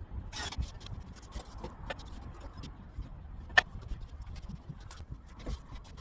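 Scattered light clicks and knocks over a low background rumble, with one sharper click a little past halfway.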